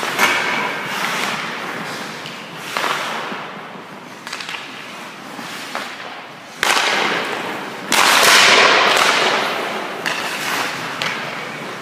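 Hockey skate blades scraping and carving on rink ice, with sharp knocks of stick and puck on the pads. The loudest is a long scrape that starts suddenly about eight seconds in and fades over about two seconds.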